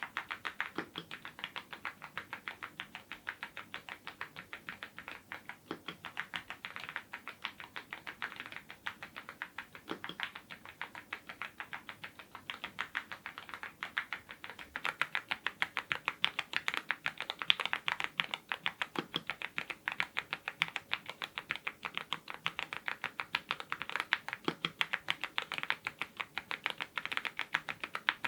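Steady fast typing on a YUNZII IF99 full-size mechanical keyboard fitted with lubed Gateron Ink red linear switches: a continuous stream of crisp keystrokes, with now and then a deeper stroke. The typing grows louder and denser about halfway through.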